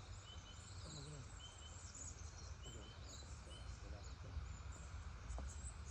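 Quiet outdoor ambience: a low wind rumble with short, faint high bird chirps repeating about once a second, and a couple of light clicks near the end.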